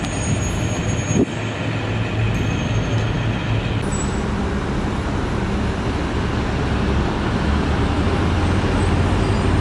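Steady road traffic noise with a low engine drone underneath.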